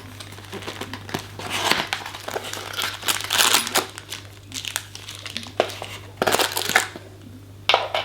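Packaging crinkling and rustling in irregular bursts as the lock's parts and bagged fixings are handled out of the box.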